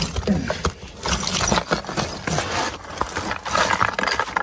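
Scraping, rustling and irregular knocks of a rescuer crawling through a narrow tunnel in collapsed concrete rubble, with clothing and gear brushing and bumping against the debris.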